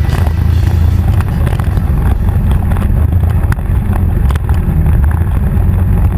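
Yamaha Warrior 350 ATV's single-cylinder engine running steadily at low revs while the quad rides a rough track, with scattered knocks and rattles.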